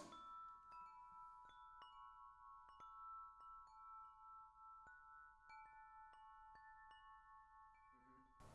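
Metal wind chimes ringing softly, struck many times at an uneven pace, their tones ringing on and overlapping.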